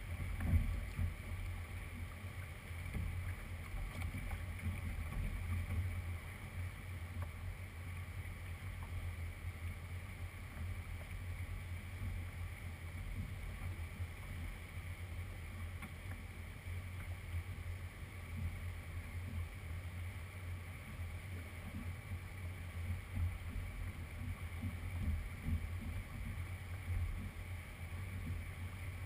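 Steady low wind rumble on the microphone of a camera on an open boat deck, out on a river.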